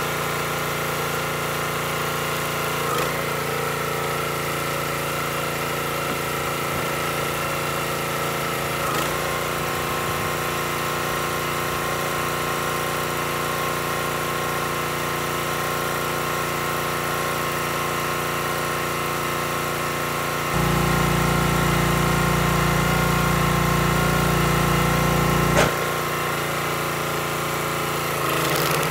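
Small gas engine of a Black Diamond hydraulic log splitter running steadily, with a few faint knocks. For about five seconds, roughly two-thirds of the way through, the engine note gets louder and heavier before settling back.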